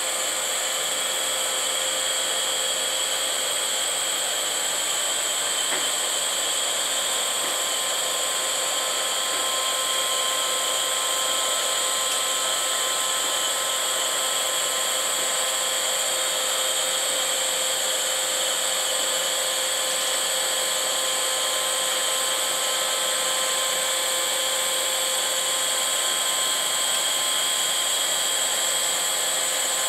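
Electric drive motor and gearbox of a 3-tonne welding positioner running steadily as the table tilts, a continuous whine made of several held tones.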